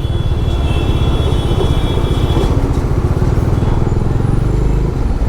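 Motorcycle engine running steadily under a heavy low rumble, recorded from the rider's own moving bike.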